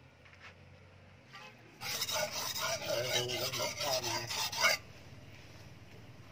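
Steel billhook blade being sharpened on a reddish whetstone: rapid back-and-forth rasping strokes for about three seconds, then it stops.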